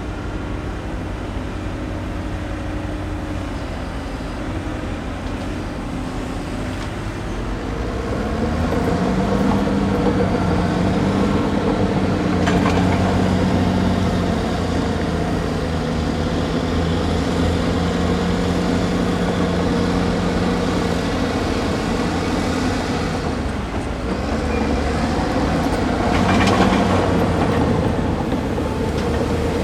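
Hydraulic excavator diesel engines running under working load. The engine note rises and picks up about a quarter of the way in and then holds steady. There is a sharp knock partway through and a short clatter near the end.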